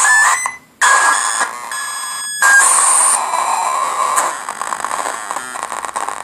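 Meng Qi's circuit-board build of the Ciat-Lonbarde Grassi touch-pad organ, played by fingers on its brass pads and sounding from its two small onboard speakers. It gives a noisy electronic sound with a few steady whistling pitches, drops out briefly just under a second in, and keeps changing character as different pads are touched.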